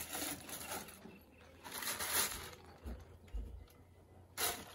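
Clear plastic bags crinkling as they are handled, in a few short rustling bursts, with a couple of faint clicks.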